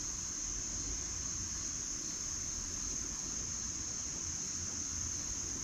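Steady, unbroken high-pitched chirring of an insect chorus, such as crickets, over a low rumble.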